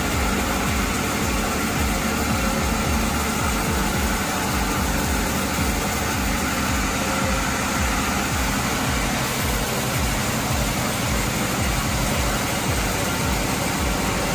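Heavy machinery engine running steadily with a rapid low throb and dense mechanical noise.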